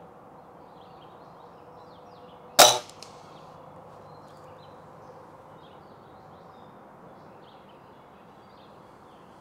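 A single shot from a Daisy Powerline 1101S air rifle about two and a half seconds in: one sharp crack with a short tail.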